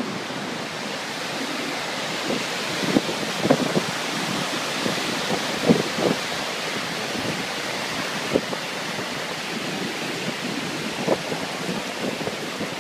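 Steady rushing of a mountain waterfall, Stigfossen, tumbling down the gorge, with a few brief gusts of wind buffeting the microphone.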